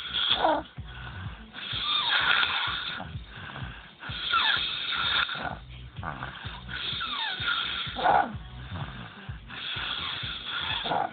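Snoring in a steady rhythm of breaths about every two and a half seconds, with a low rattling buzz and short falling whistles between some breaths.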